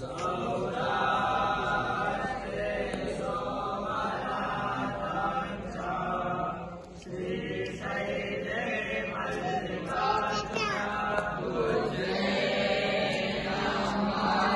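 A group of young Vedic students (rishikumars) chanting mantras in unison as a blessing, many voices held together on sustained pitches, with a brief pause about halfway through.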